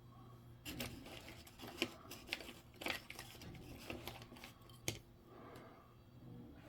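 Light handling noises at a work table: a scatter of sharp small clicks and short rustling scrapes for a few seconds, over a faint steady hum.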